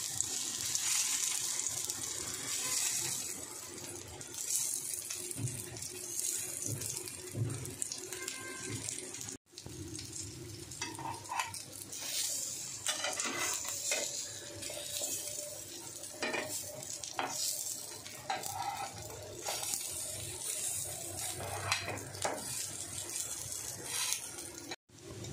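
Chicken kababs sizzling as they shallow-fry in oil on a flat iron tawa. Scattered clinks and scrapes come from a metal spoon and spatula against the pan as the kababs are turned.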